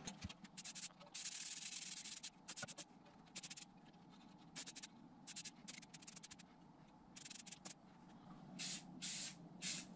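Aerosol spray-paint can hissing in bursts: one longer spray of about a second, then a string of short squirts.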